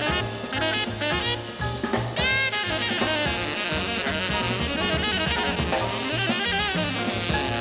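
Tenor saxophone playing a fast, flowing jazz solo with bent notes, over a walking bass line and drum kit with cymbals.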